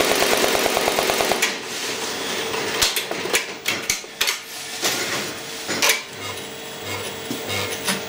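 Multi-needle embroidery machine stitching at a fast, even rhythm, which stops about a second and a half in. Scattered clicks and knocks and a faint hum follow as the needle head shifts across to a new thread colour.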